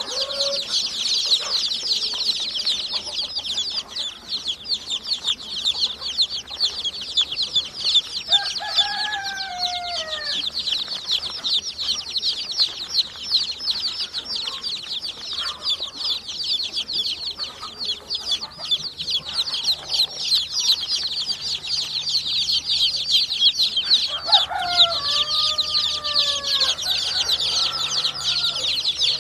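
Cockatiel chicks' begging calls: a rapid, continuous high-pitched chirping. A few short, lower calls break in about nine seconds in and again near the end.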